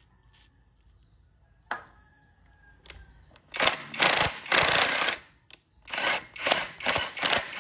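A few light clicks, then a power tool running in short bursts: one longer run about three and a half seconds in and several quick ones near the end, working on a bolt's threads to restore them.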